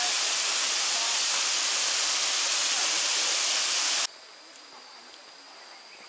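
Waterfall rushing: a steady, loud hiss of falling water. About four seconds in it cuts off abruptly to a much quieter background with a faint, steady high-pitched drone.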